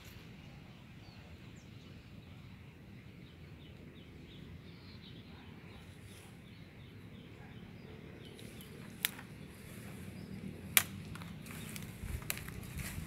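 Branches and leaves crackling under the hands of someone climbing through a tree, with two sharp cracks a little past the middle and a run of crackling near the end. Faint bird chirps in the background.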